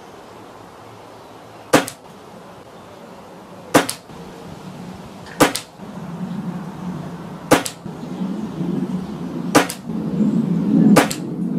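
Reximex Regime .177 PCP air rifle, fitted with a Lane regulator, firing six shots about two seconds apart. A low rumble builds underneath from about six seconds in.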